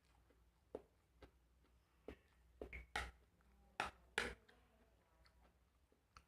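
Eating sounds: a scattering of short crunches and mouth clicks, about ten in all, the loudest about three and four seconds in, as someone chews swamp cabbage and rice.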